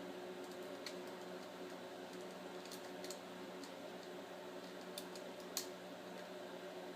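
A few faint small clicks and taps of hard plastic and metal laptop parts being handled, the sharpest a little past halfway, over a steady low hum.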